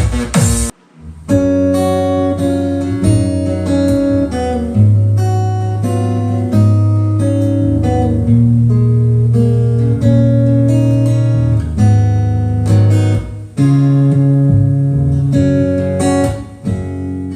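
Music played through a sound system for an equalizer sound test: a song with a strong, steady bass line, starting after a short break about a second in.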